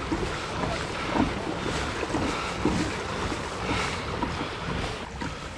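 Water rushing and splashing along a fishing kayak's hull as it moves at speed, with wind buffeting the microphone.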